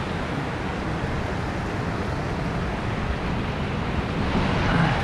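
Steady rushing of water pouring over a dam spillway.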